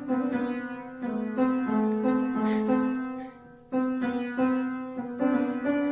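Music: a piano playing a melody of held notes.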